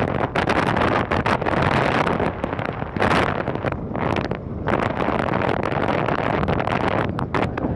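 Strong, gusty wind blowing across the microphone, a rumbling rush that comes and goes in uneven gusts with frequent short crackles of buffeting.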